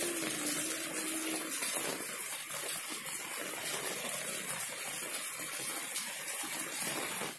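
Heavy rain falling steadily: an even, dense hiss of drops on foliage and wet ground.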